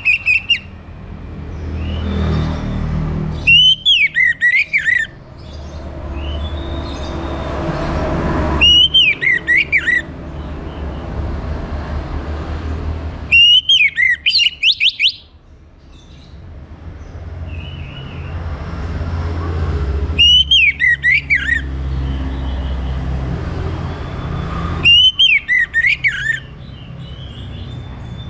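Orange-headed thrush singing short bursts of quick, rising-and-falling whistled notes, five phrases about five seconds apart, each lasting about a second and a half. A steady low rumble runs underneath.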